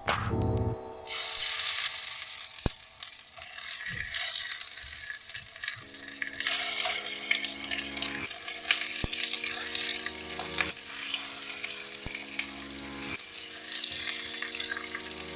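Raw chicken pieces sizzling and frying as they are laid into hot oil in a nonstick pan to be seared. The sizzle starts about a second in, with a few sharp clicks as pieces go in.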